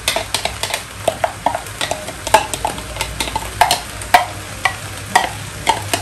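A spoon tapping and scraping against a glass bowl in irregular sharp clinks, about two or three a second, each with a short ring, as the last vegetable bits are scraped out of the bowl into the pot.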